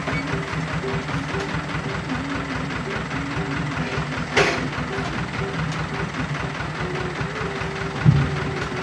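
Truck engine idling steadily, with a sharp knock about halfway through and a heavier low thump near the end as oil palm fruit bunches are loaded into the truck's bed.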